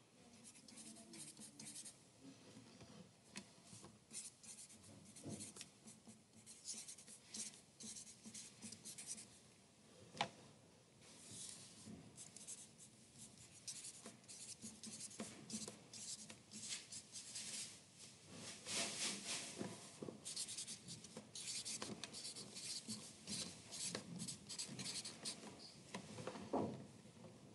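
Writing by hand on workbook paper: irregular scratchy strokes in quick runs with short pauses, and a sharp tap about ten seconds in.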